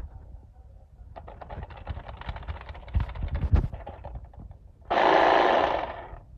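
Irregular plastic-and-metal clicking and rattling as a cordless reciprocating saw is handled, with a few low knocks. About five seconds in, the Black+Decker 20V MAX reciprocating saw runs in one short burst that starts suddenly and winds down over about a second.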